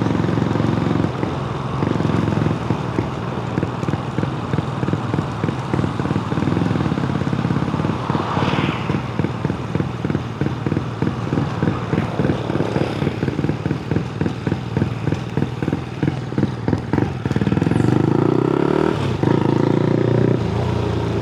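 Honda Grom's 125cc single-cylinder engine running while riding, with a fast pulsing exhaust note through the middle. Its pitch rises as it accelerates near the end.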